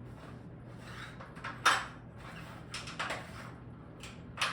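Chalk writing on a blackboard: a run of short, scratchy strokes and taps, the loudest about a second and a half in.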